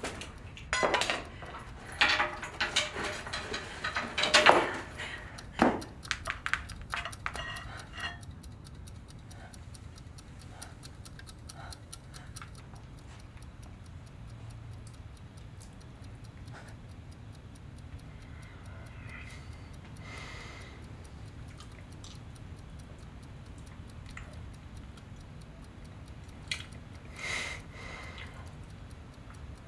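A clock ticking steadily in a quiet room. It is covered by a few seconds of knocks and rustling from things being handled at the start.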